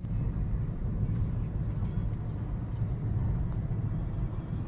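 Steady low rumble of road and engine noise heard inside the cabin of a moving Toyota car.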